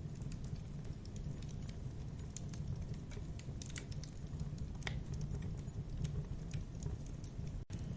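Campfire burning: wood crackling with irregular sharp pops and snaps over a steady low rumble of flame. The sound cuts out for an instant near the end.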